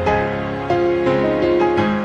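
Slow, gentle piano music: single notes struck one after another over held bass notes.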